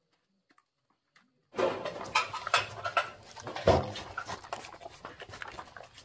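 A dog eating cooked rice from a plastic basin, heard close up: a quick, dense run of mouth clicks and chewing sounds starting about a second and a half in, with one louder knock in the middle.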